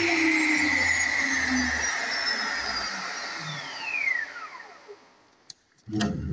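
Electric mitre saw's motor and blade spinning down after a crosscut through a pine plank: a whine that falls steadily in pitch and fades out about five seconds in. A click and a thump follow near the end.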